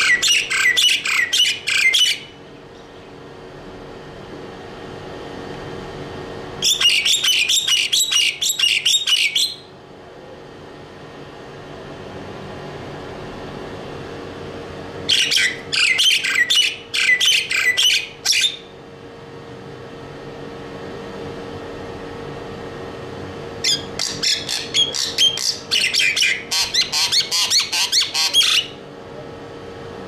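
Common myna singing in four bouts of rapid chattering, squawking notes, each lasting two to five seconds with pauses between, over a steady low hum.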